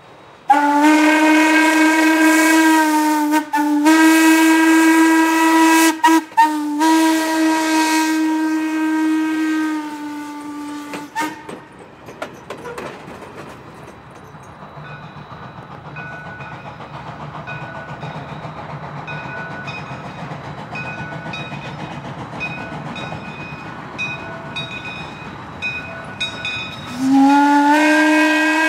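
Norfolk & Western hooter steam whistle on Hocking Valley No. 3, blowing one long, low, mellow blast that dips briefly twice and sags in pitch as it closes. Steam hiss follows, with a faint tone repeating at steady spacing, and the whistle opens again near the end.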